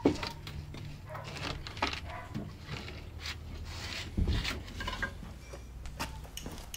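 Wooden boards knocking and scraping as they are moved about in a workshop. There is a sharp knock at the start and a heavier low thud about four seconds in.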